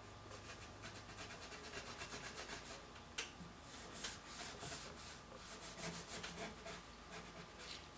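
Faint back-and-forth rubbing on the steel barrel of an antique Winchester 1892 rifle, in quick strokes a few per second, with one sharper tap about three seconds in. The barrel is being rubbed with cleaning oil to lift old grime from its rusty brown patina.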